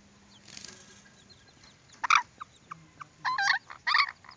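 Short bird squawks: one sharp call about two seconds in, then two longer, wavering calls close together near the end.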